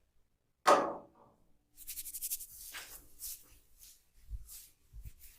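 A single sharp swish about a second in, then soft brushing and rubbing strokes of hands working over hair and skin during a head massage, with two faint low thumps near the end.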